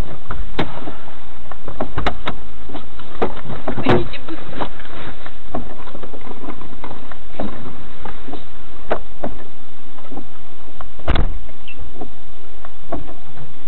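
Irregular knocks, clicks and rattles in a wrecked car in the seconds after a head-on collision. The biggest come about four seconds in and about eleven seconds in.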